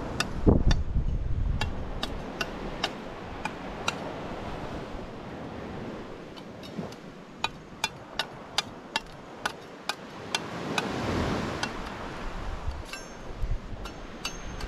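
Wind gusting on the microphone over surf noise, with many sharp, irregular clicks and ticks scattered through it, several in quick succession in the middle.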